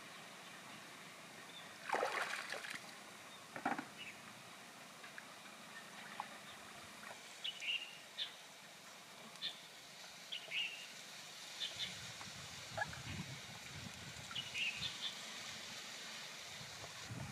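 Shallow river water splashing twice, about two and four seconds in, as someone wades and handles things in the water. Scattered short, high chirps follow over a low rumble.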